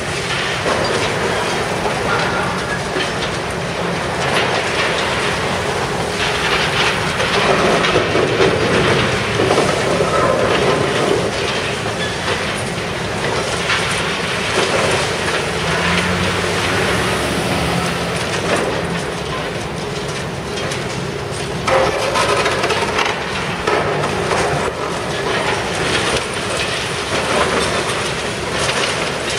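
Demolition excavator's hydraulic jaws crunching and tearing at a reinforced-concrete floor slab: a continuous loud clattering of breaking concrete and falling rubble, with irregular heavier knocks, over the machine's steady running.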